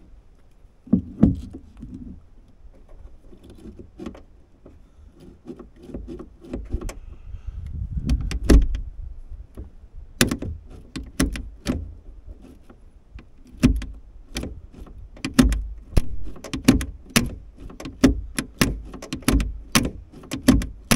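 Ratchet wrench working a bolt on a truck toolbox lid latch: irregular metallic clicks and knocks, coming quicker and more regularly from about halfway on.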